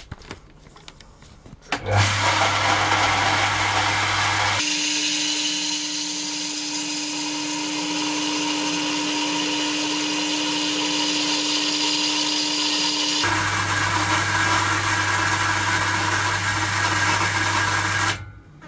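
Electric pump of a home water pumping station starting up and running steadily, filling its pressure tank for the first time after the accumulator membrane was replaced, then stopping abruptly near the end. A middle stretch is played sped up, so its hum sounds higher.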